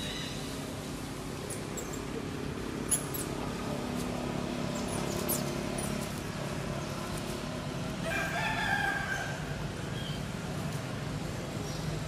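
A rooster crowing once in the distance, a call of about a second some eight seconds in, over a steady low background hum, with a few faint high chirps earlier.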